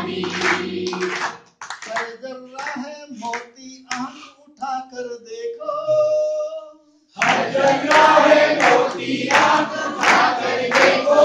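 A group singing together in unison, with hand clapping. About a second and a half in, a single voice carries the line alone with held notes, and the whole group comes back in loudly about seven seconds in, like a call-and-response song.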